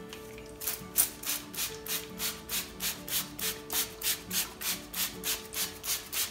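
Hand trigger spray bottle spritzing water onto cotton wool in quick, even squirts, about three or four a second. The squirts begin after a short pause near the start.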